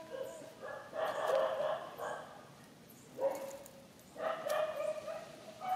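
Baby macaque giving several drawn-out, even-pitched cries, each up to about a second long.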